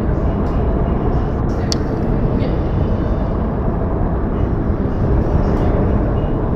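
Steady rushing of wind outdoors in a snowfall, heavy in the low end as if buffeting the microphone, with a faint click just under two seconds in.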